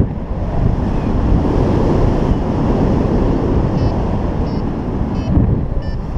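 Airflow of paraglider flight buffeting an action camera's microphone: a loud, steady, dense rumble. From about four seconds in, faint short high beeps repeat roughly every 0.7 s.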